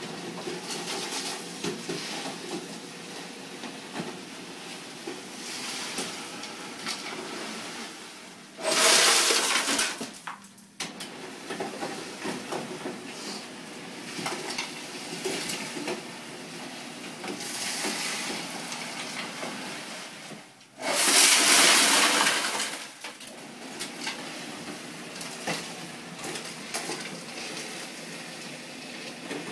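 Motel ice machine dispensing ice into a plastic bucket: two loud rushes of ice cubes pouring out, about nine seconds in and again about 21 seconds in, each lasting around two seconds. Lighter clicks and rattles in between.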